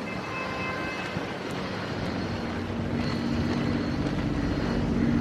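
A vehicle engine's low hum over steady outdoor noise, growing slightly louder from about halfway through, as if the vehicle is drawing nearer.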